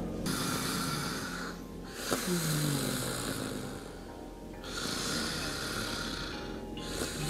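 A person snoring in slow, drawn-out breaths, about three long ones, with short pauses between.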